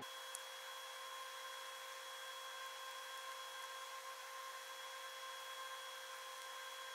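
Steady background hiss with a faint, constant high whine made of a few held tones: room tone with no clear event in it, apart from one tiny click about a third of a second in.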